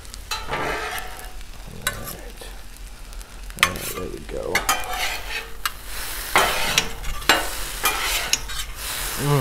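Food sizzling on the hot steel of a Blackstone flat-top griddle while two metal spatulas scrape and clack against the cooktop, stir-frying noodles, with irregular sharp clicks and scrapes over a steady sizzle.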